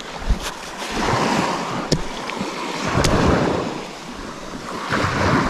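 Waves washing onto the beach in slow surges, rising and falling about every two seconds, with wind on the microphone and a few brief sharp clicks.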